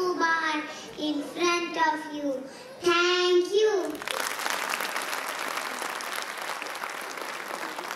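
A young girl's voice through the stage microphone delivers a short sing-song line with held notes, stopping about four seconds in. The audience then breaks into steady applause that continues.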